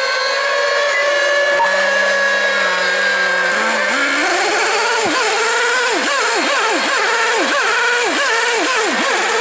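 Several small-displacement RC racing-boat engines running flat out at a high whine. From about four seconds in, one engine's pitch repeatedly drops and surges back, roughly twice a second.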